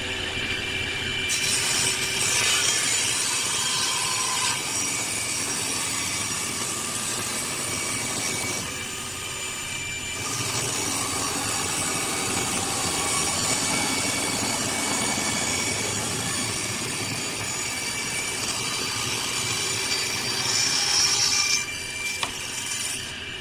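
Table saw blade cutting lengthwise through a thick wooden block: a steady sawing noise that starts about a second in, lets up briefly about a third of the way through, and stops near the end, leaving the blade spinning freely.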